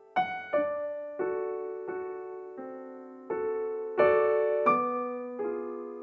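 Slow, gentle piano music: notes and chords struck about every two-thirds of a second, each ringing and fading before the next.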